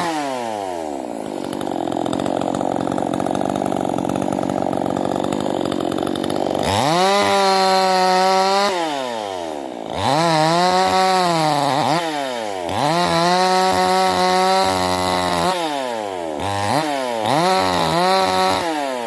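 Stihl two-stroke chainsaw running at a lower, steady speed for about six seconds, then revved up to high speed and let back down several times, each rev rising quickly, held briefly and falling away.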